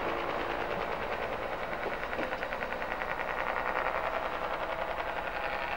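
Diesel train's engines running nearby, a steady noise with a rapid, even pulsing, probably the Class 115 diesel multiple unit standing at the station.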